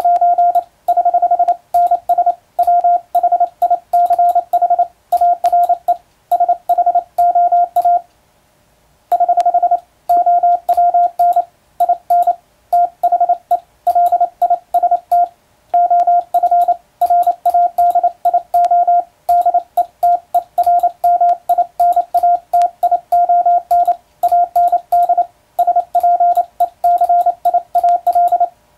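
International Morse code sent with an electronic keyer: a steady mid-pitched beep keyed on and off in fast, even dots and dashes, with faint sharp clicks along with the keying. The sending stops for about a second, about eight seconds in.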